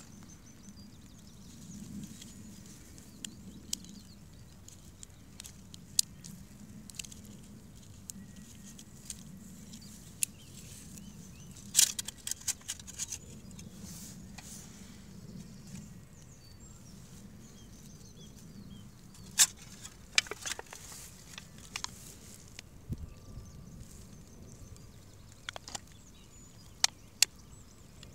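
Scattered sharp clicks and light crinkles of hands handling a small glass-jar oil burner and a thin beer-can aluminium wind shield, with louder clusters about twelve and twenty seconds in. A steady low rumble runs underneath.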